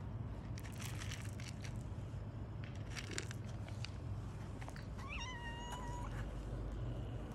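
Dry cat kibble rattles and clicks as it is tipped from a plastic cup onto concrete, then a cat gives one meow about five seconds in, rising at the start and held for about a second.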